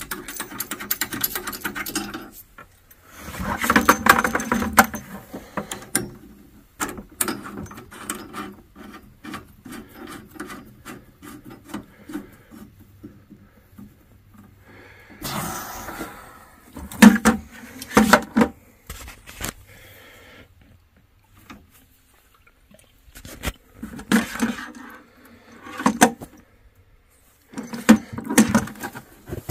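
Hand work on a Navien tankless water heater during a heat exchanger replacement: irregular scraping, rubbing and sharp clicks of tools and parts being handled, coming in bursts with pauses between.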